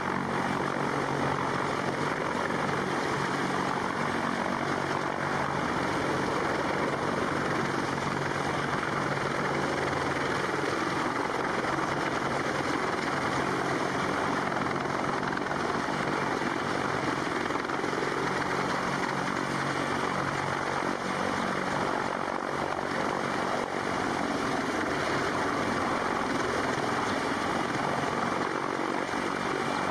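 Sikorsky CH-53 heavy-lift helicopter hovering low overhead: a steady, loud din of rotor and turbine noise with a low hum running under it.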